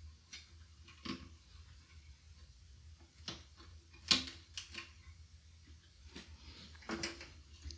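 A handful of small, sharp clicks and scrapes as the old clock battery is worked out of a Macintosh SE/30 logic board, the loudest about four seconds in.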